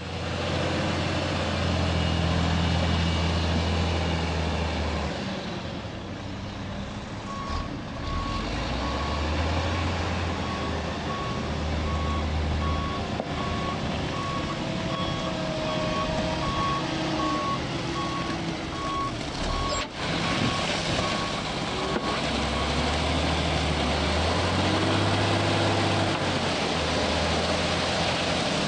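Heavy diesel earth-moving equipment running, its engine note rising and falling as it works, with a back-up alarm beeping steadily for a stretch in the middle while it reverses.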